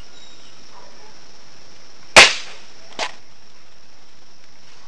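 Crosman F4 Nitro .177 gas-piston air rifle firing a pellet: a single sharp crack about two seconds in, with a short decay, then a much fainter click just under a second later.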